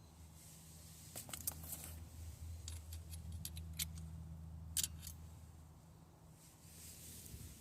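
Scattered light metallic clicks and clinks from tools and metal parts being handled during brake work, over a faint steady low hum.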